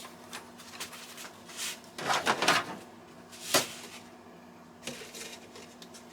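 Scattered knocks, clatter and rustles of a cut length of corrugated plastic pipe and a stainless steel funnel being handled and test-fitted together. The loudest knocks come about two seconds in and about three and a half seconds in.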